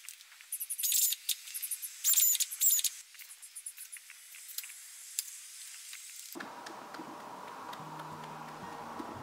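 A run of sharp, high-pitched chirps and squeaks over the first few seconds, with all the low sound cut away. A faint steady hum follows, and acoustic guitar music comes in near the end.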